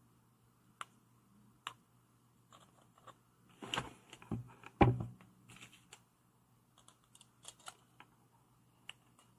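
Metal pliers being handled on a wooden table: scattered light clicks and knocks, with a short cluster of louder knocks about four to five seconds in.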